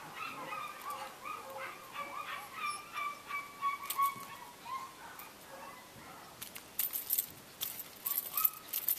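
Seven-week-old German Shepherd puppies whining, with high, wavering, drawn-out cries, while they are held. Near the end come a run of sharp clicks and rustles.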